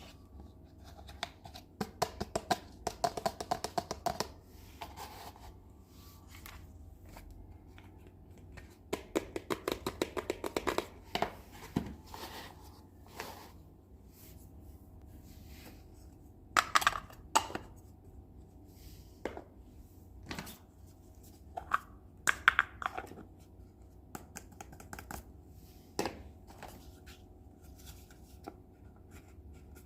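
Hands unboxing and handling small plastic miniature kitchen-set toys: runs of rapid light clicks and taps, with a few louder scratching, rubbing sounds.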